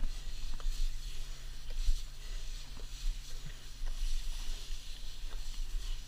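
Wind rumbling on the microphone, with a few faint clicks and scrapes of a shovel digging into wet beach sand.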